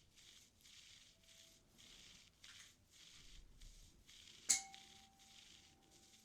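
Ear-cleaning tools scraping and rubbing in the ear canal close to the microphone, soft scratchy strokes about twice a second. About four and a half seconds in, a metal tool clinks once and rings briefly.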